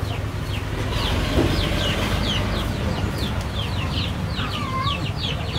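Chickens calling: a quick, irregular run of short, high, falling peeps, with a lower curved call about four and a half seconds in, over a steady low rumble.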